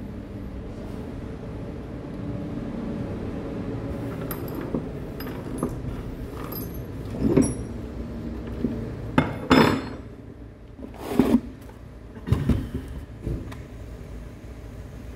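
Small metal engine parts being handled: a steady low hum, then about six sharp, ringing metal clinks and knocks in the second half.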